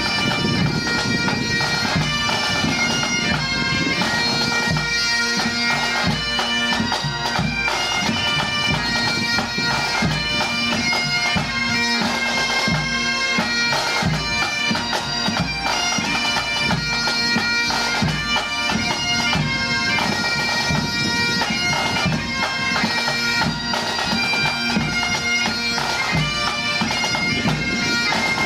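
Great Highland bagpipes playing a tune, the chanter melody moving over the steady drones.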